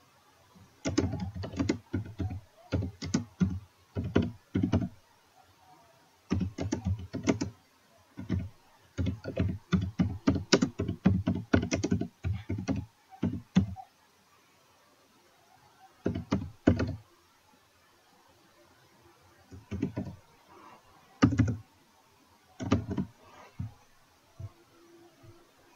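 Computer keyboard typing in bursts of rapid keystrokes, broken by pauses of a second or several between runs. The longest run of typing is in the middle of the stretch; after that come only short flurries of a few keys.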